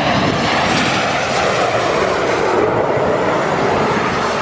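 An airliner on its landing approach passing close by, its engines making a loud, steady noise.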